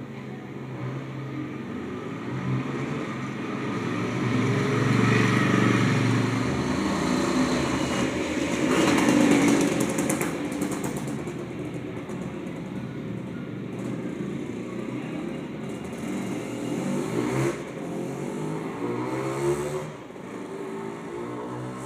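Street traffic: motor vehicles passing, louder around five and again around nine seconds in, then a steadier lower traffic noise.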